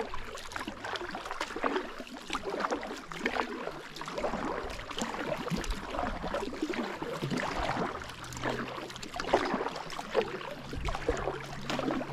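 Kayak paddling: irregular splashing and dripping of water off the paddle blades as the kayak moves along a slow stream.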